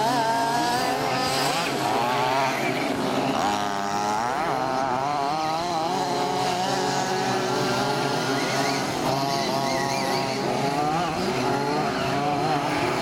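Several 1/5-scale RC Baja buggies with small two-stroke petrol engines racing at once. Their overlapping engine notes keep rising and falling as they rev and back off around the track, with one sharp rev-up about four seconds in.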